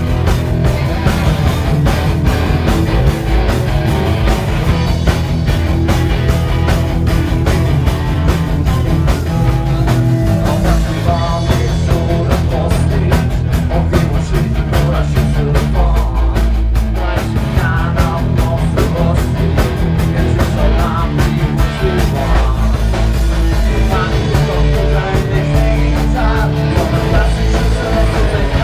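Live rock band playing loud and steady: electric guitar and a drum kit.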